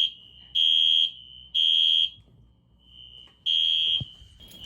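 Building fire alarm sounding: loud high-pitched beeps about half a second long, two of them a second apart, then a longer pause before the next, with a fainter tone carrying on between beeps. A dull thud comes near the end.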